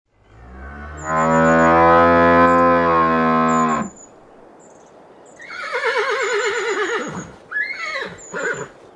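A cow moos once in a long, low, loud call lasting about three seconds. After a short pause a horse whinnies: a quavering call that falls in pitch, followed by two short higher calls near the end.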